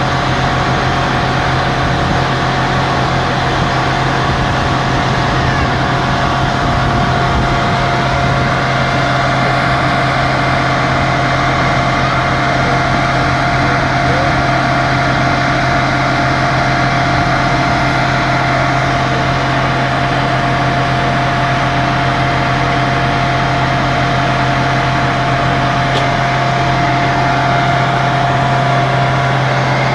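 Truck-mounted borewell drilling rig running steadily while drilling: a constant diesel engine drone with a steady high whine over it.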